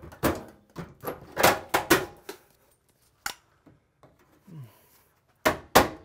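Hammer and pry bar knocking against the sheet-metal housing of an old bathroom exhaust fan as its mounting nails are worked loose: a string of sharp metallic knocks for about two seconds, another a second later, a pause, then quick evenly spaced blows about three a second near the end.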